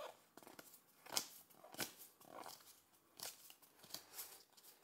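Pokémon trading cards being flipped through by hand, each card slid off the stack with a soft flick. About seven faint, irregular flicks, the loudest a little over a second in.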